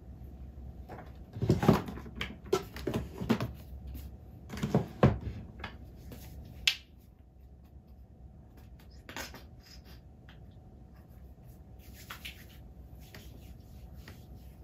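Handling noise on a bed: a run of soft knocks and rustles of bedding and fabric, with a small object handled, for the first half. After that, quiet room tone with a couple of light clicks.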